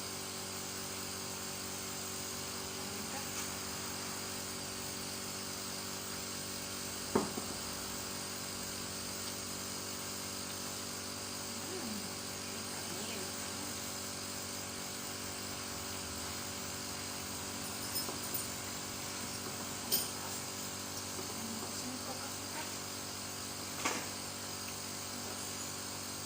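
Steady hum of a small electric motor, with a few sharp clinks now and then.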